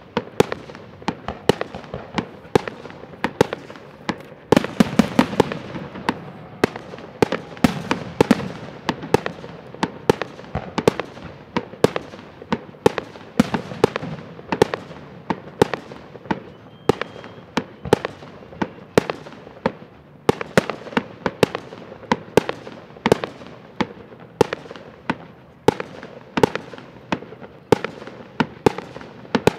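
Fireworks display: aerial shells bursting in a steady run of sharp bangs, about two a second. A dense flurry of blasts with a low rumble comes about five seconds in.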